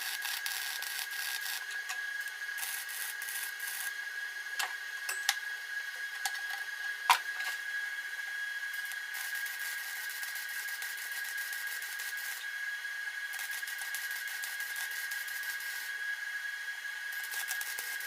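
MIG welder arc crackling in runs on thin 18-gauge sheet steel, run at low heat and high wire speed, with a louder pop about seven seconds in. A steady high tone sounds underneath throughout.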